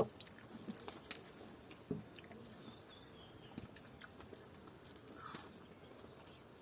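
Several people chewing noisily, a faint run of scattered wet clicks and lip smacks.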